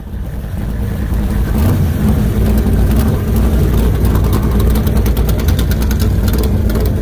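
A vehicle engine running steadily with a deep rumble, swelling in over the first second and then holding.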